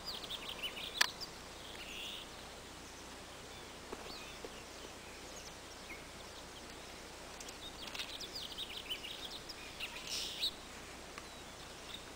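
Faint outdoor ambience with small birds chirping in clusters of quick high notes, near the start and again in a longer run about three quarters of the way through. A single sharp click about a second in.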